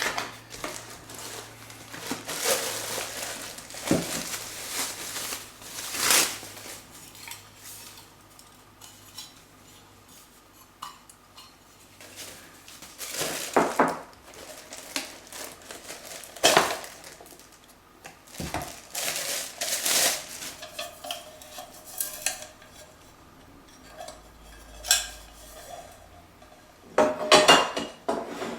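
Metal camping cook set, a cooking cup and stove base, being handled and fitted together: scattered clinks and scrapes of metal on metal, some sharp, with quieter rattling between.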